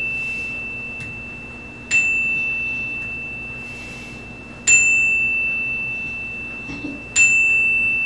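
A hand-held single-bar chime struck with a small mallet three times, roughly two and a half seconds apart; each strike gives one clear high tone that rings on and slowly fades, and the ring of an earlier strike is still dying away at the start. The chime is sounded as a memorial tone acknowledging each loved one named.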